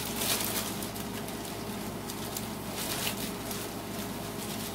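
Sliced steak and onions sizzling gently in a frying pan on a turned-down burner, a steady hiss broken by a few louder crackles.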